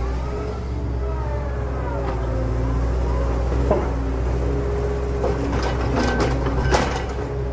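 A steady, engine-like truck drone with several held tones that slowly waver. A few sharp knocks come in the second half as soil clods drop into the toy dump truck's plastic bed.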